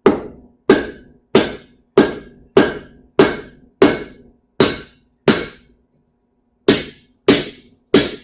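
Hammer blows on hot sword steel over an anvil, a steady rhythm of about one and a half strikes a second with a brief ring after each and a pause of about a second past the middle, as the blade is forged edge-up.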